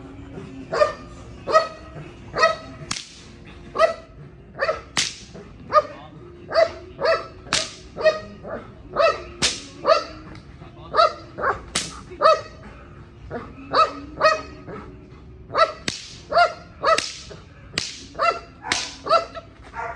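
Belgian Malinois barking over and over in a steady series, about two sharp barks a second.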